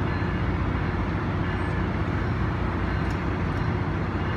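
Tri-Rail commuter train's diesel locomotive idling at the platform: a steady rumble with a constant hum.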